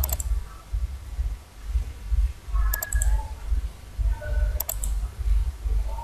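Computer mouse button clicking in quick pairs, three times, over a steady low hum. The clicks place the ends of wires in a circuit-drawing program.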